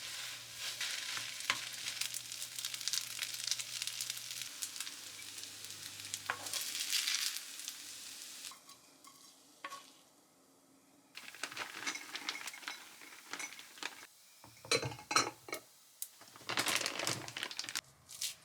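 Spicy bacon fried rice sizzling in a frying pan while a spatula stirs and scrapes it, with many small clicks against the pan. About eight seconds in the sizzle drops away, and after a short lull come scattered, uneven spatula strokes and clicks.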